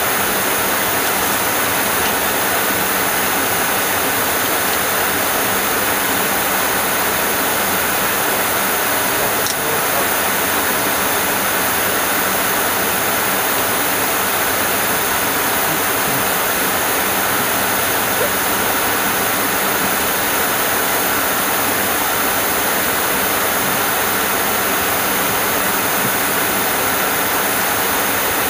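Steady rushing cockpit noise of an MD-80 airliner in flight, airflow past the flight deck with a faint steady hum under it. A small click about ten seconds in.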